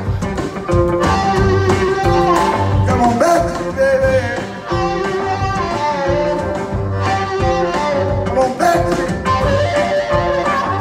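Live blues band: a harmonica played into a hand-cupped vocal microphone, its notes bending, over electric guitar, plucked upright bass and drums.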